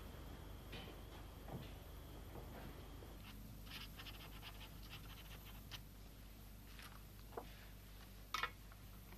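Playing cards being shuffled and dealt on a table: a run of faint quick ticks, over a low steady hum, with one sharper knock near the end.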